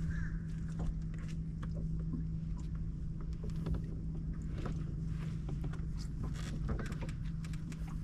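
A boat motor running with a steady low hum, with scattered small clicks and knocks over it.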